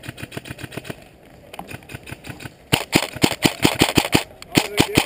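Airsoft rifle firing in rapid full-auto strings of sharp cracks: a lighter string in the first second, then louder strings from nearly three seconds in to the end.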